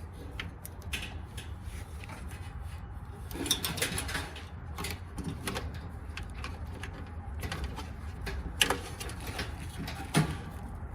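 Scattered small clicks and taps of wire connectors being handled and pushed onto terminals inside an electric dryer, a few sharper clicks among them, over a steady low hum.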